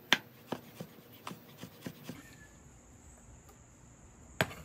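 Chef's knife dicing a Roma tomato on a wooden cutting board: about six quick knife taps on the board in the first two seconds, growing lighter, then one sharper knock near the end as the tomato is swept off the board. A faint steady high-pitched buzz sits underneath.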